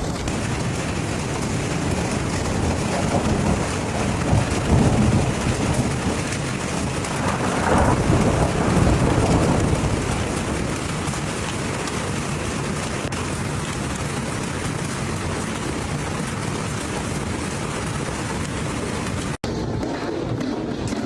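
Hailstorm: hail and heavy rain pelting down hard and without a break, with swells of low thunder rumble about four and eight seconds in. The sound drops out for an instant near the end.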